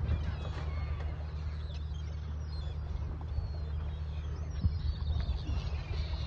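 Seagulls calling in high, wavering cries over a shoal of feeding fish, above the steady low hum of the small boat's engine running. A single sharp knock sounds about four and a half seconds in.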